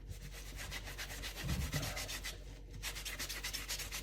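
Gritty scrubbing of a steel knife blade with a nearly dry sponge and Bar Keepers Friend cleanser powder, quick back-and-forth rubbing strokes that pause briefly about two-thirds of the way through.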